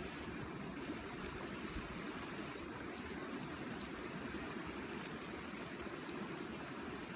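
Small fire burning in a B6-kun compact folding grill: a steady low rushing noise with a few sharp crackles scattered through it.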